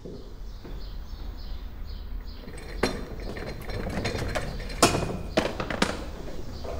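A few sharp knocks and clinks, the loudest about five seconds in, over a steady low room hum.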